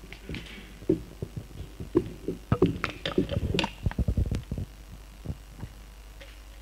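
Handling noise at a lectern: a run of irregular low thumps and a few sharper knocks, densest from about one second to four and a half seconds in, over a steady low hum.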